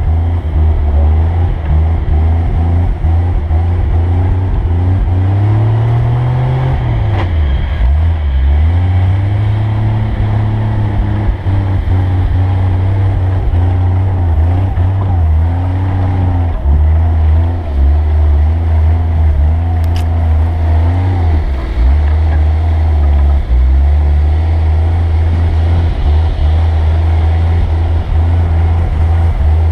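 A vehicle engine running under changing throttle, its note rising and falling again and again.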